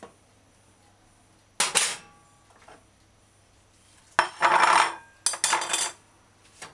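Dishes and cooking utensils clattering. There is a sharp clink about a second and a half in, then two longer stretches of clatter in the second half.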